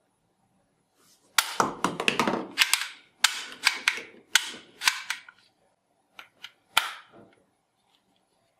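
Toy gun firing: a quick run of about a dozen sharp cracking shots, then three more after a short pause.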